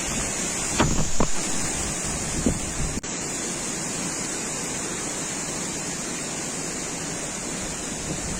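Wind rushing steadily and buffeting the microphone, with a few short low gusts about a second in.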